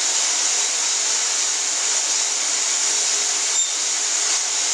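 Steady, loud rushing hiss with no rhythm or pitch, like blowing air, and one faint click about three and a half seconds in.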